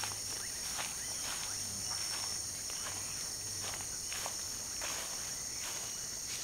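A steady, high-pitched chorus of insects, with light footsteps rustling through dry cut grass about every half second.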